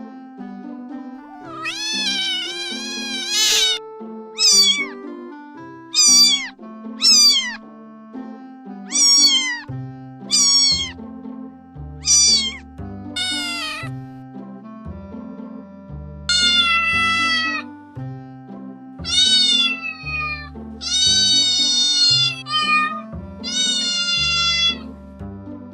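Domestic cat meowing over and over, about a dozen meows of varying length, many falling in pitch, over background music. A bass line joins the music about ten seconds in.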